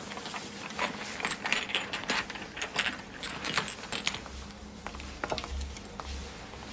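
A quick run of small hard clicks and clinks from small objects handled in the hands, thinning to a few single clicks after about four seconds, with a few low thuds near the end.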